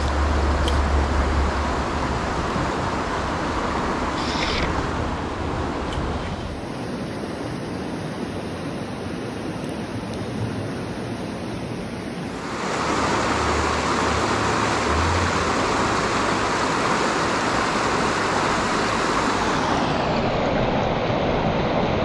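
Steady rushing of river water, dipping quieter for several seconds in the middle, with some low rumble at times.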